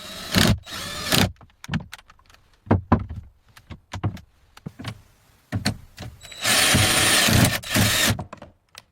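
A run of sharp knocks and clatter, with a short rushing noise about a second in and a longer one lasting about a second and a half near the end.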